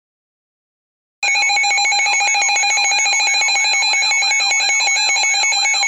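Weather-radio emergency alert alarm starting about a second in: a loud electronic warble repeating about three times a second over steady high tones, sounding for an EAS severe thunderstorm warning.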